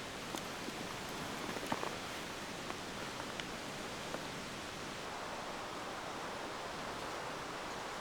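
Campfire burning: a steady hiss with scattered small crackles and pops in the first half.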